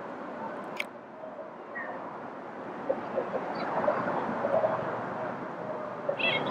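Steady outdoor rushing noise with faint distant voices, and a few short honking calls from geese near the end.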